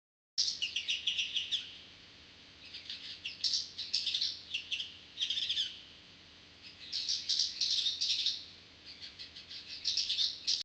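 Eurasian tree sparrows chirping, in quick runs of high, short chirps with two brief lulls between the runs. The sound starts abruptly just under half a second in.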